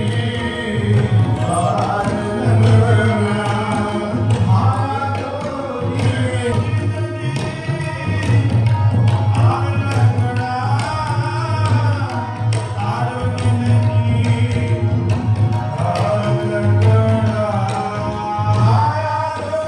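Music: a singing voice in long gliding phrases over drumming and a pulsing low accompaniment.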